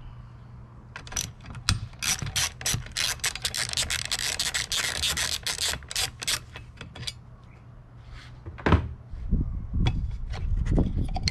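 A hand socket ratchet clicking rapidly as the bolts holding the cooling-fan control module to the fan shroud are loosened. A sharp knock comes about nine seconds in, followed by a few scattered handling clicks.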